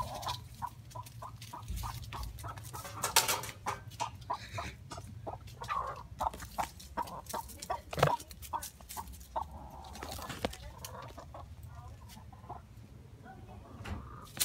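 Chickens clucking in a rapid run of short notes, thinning out after about nine seconds.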